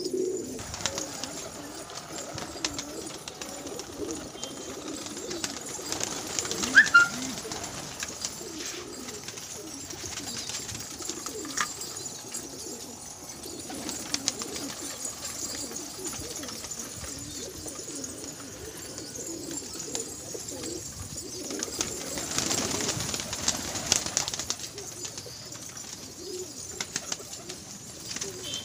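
A flock of domestic pigeons cooing continuously, with bursts of wing flapping, the longest about 22 seconds in. A short high squeak about 7 seconds in is the loudest moment.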